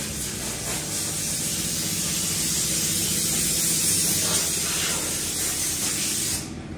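Compressed air hissing steadily, as air is put into a flat front tire, then cutting off suddenly near the end.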